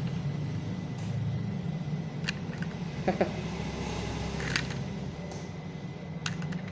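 A steady low hum throughout, with a few light clicks and taps as a small plastic model car is handled and turned over.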